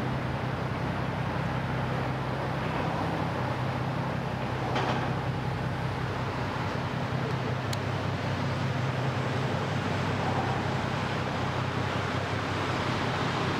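Steady low drone of a passing tugboat's diesel engines over a wash of water noise.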